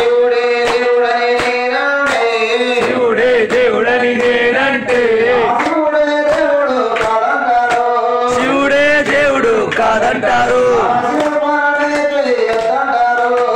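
A man singing a Telugu devotional song to Shiva into a microphone, in long drawn-out melodic phrases.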